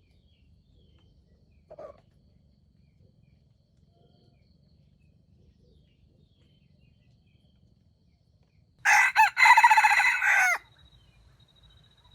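A jungle fowl rooster crows once, loudly, nearly nine seconds in: a couple of short clipped notes and then a longer one, all within about two seconds. A brief faint call comes about two seconds in.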